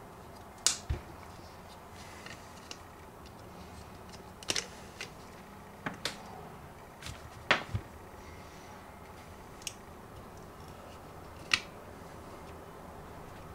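Sharp plastic clicks and taps, about a dozen spread unevenly, as a screwdriver pries the cell caps off the top of a small lead-acid battery to check its fluid.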